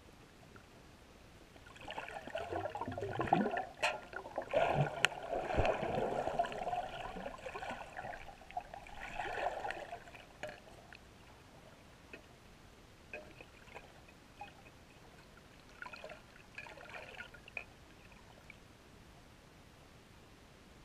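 Water gurgling and bubbling, as heard from an underwater camera housing, irregular and fairly loud for about nine seconds with a couple of sharp clicks, then dying down to a few faint ticks.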